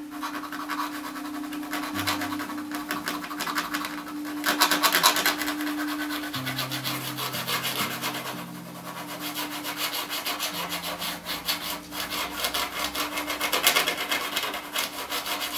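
Small steel tool scraping across the etched surface of an intaglio printing plate in quick, rapid strokes, louder in spells about four seconds in and again near the end.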